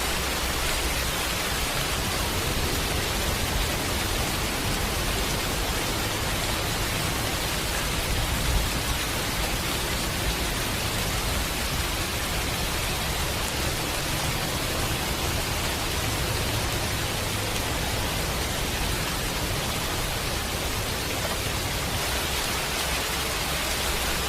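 Steady, unbroken rushing of water, a dense even noise of the kind made by heavy rain or floodwater, holding one level throughout.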